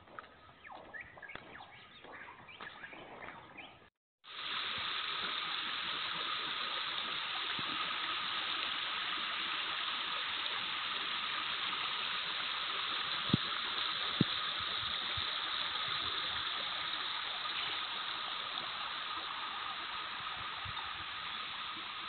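Faint footsteps on a dirt forest trail, then, after a cut about four seconds in, the steady rush of a forest stream flowing over rocks, with two brief knocks midway.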